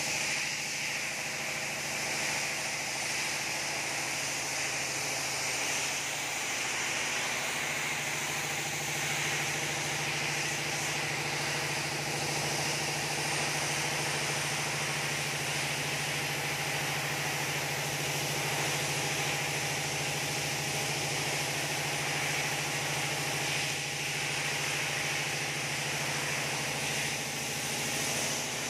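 Spray-painting equipment running steadily: the constant hum of its motor under the continuous hiss of the spray gun.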